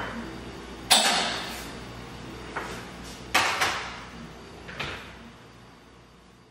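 Ceramic cups and glasses set down one after another on an espresso machine's cup tray: a series of about six sharp clinks and knocks with short ringing tails, fading out near the end.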